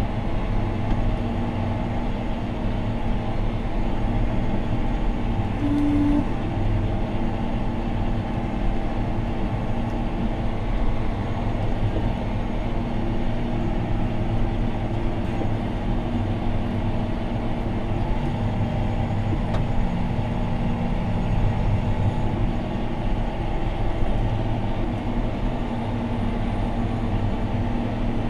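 John Deere 6215R tractor's six-cylinder diesel engine running steadily under ploughing load, heard from inside the cab. About six seconds in there is a brief single beep.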